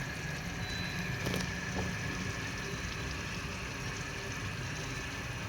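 A pan of herbal decoction boiling on the stove, giving a steady bubbling hiss.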